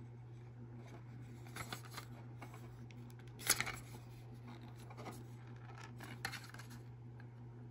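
Faint handling of a plastic robot body turned over in the hands: light rubs and small clicks, the sharpest about three and a half seconds in, over a steady low hum.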